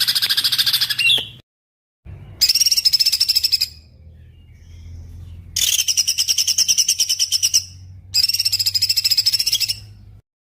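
Small songbird singing loud, high-pitched phrases of very rapid repeated notes, each burst lasting about one to two seconds, four times with pauses between. A faint low hum lies under the song, and the recording cuts to dead silence near the end.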